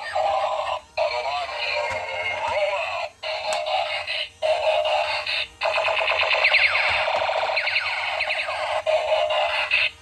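Background music with a synthetic singing voice, thin with no bass, cutting out briefly several times.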